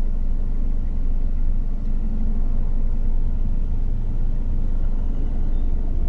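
2005 Chrysler PT Cruiser's 2.4-litre four-cylinder engine idling with a steady low rumble.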